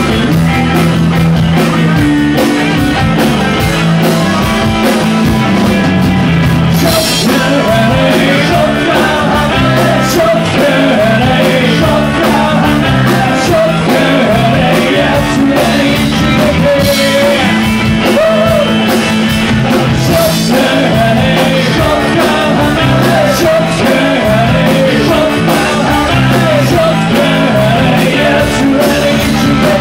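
Live rock band playing: distorted electric guitars, bass and drum kit, with a male lead vocal at the microphone from about eight seconds in and cymbal crashes near seven and twenty seconds.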